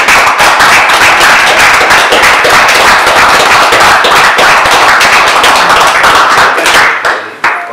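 Audience applauding: loud, dense clapping that fades out about seven seconds in, with a last brief flurry of claps just before the end.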